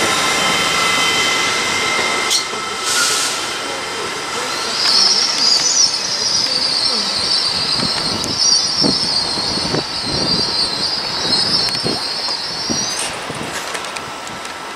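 GWR Intercity Express Train running slowly into the platform, with a high, wavering squeal from its wheels and brakes that starts about four seconds in and cuts off sharply near the end, over a low rumble from the wheels on the track.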